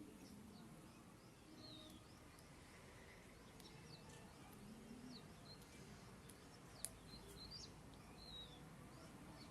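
Faint, scattered bird chirps over a low steady background hiss, with one sharp click about seven seconds in.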